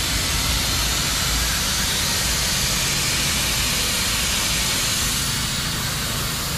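Steady hiss of compressed air running through a pneumatic oil extractor, with a steady low hum underneath.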